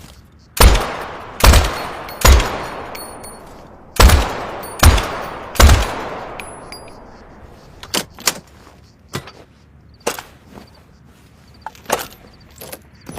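M60 machine gun sound effect: six loud single shots, each with a long echoing tail, in two groups of three about a second apart, followed by a string of quieter, shorter shots.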